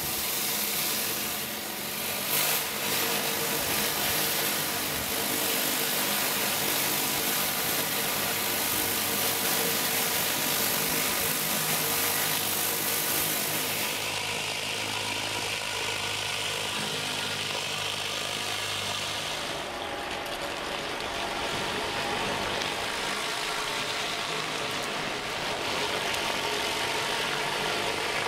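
High-pressure washer running with a Kärcher FR 50 rotary surface cleaner: the hiss of its spinning water jets striking the paving under the hood, over the steady hum of the washer's motor and pump. The high hiss drops about halfway through and shifts again a few seconds later.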